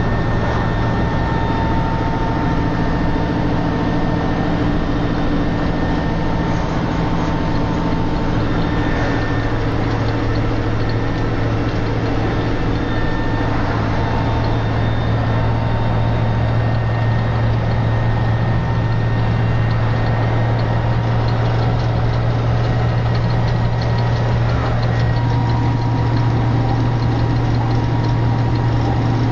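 Tatra 815 truck's diesel engine running at a steady pitch while driving, heard from inside the cab, with road noise under it.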